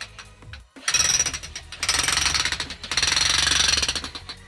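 Jackhammer breaking up hard ground for a footing hole, running in three bursts of rapid hammering with short pauses between them.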